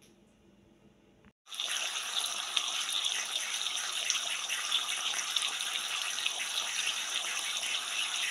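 French toast, a sausage and bacon sizzling in hot oil in a frying pan: a steady crackling hiss that starts suddenly about a second and a half in.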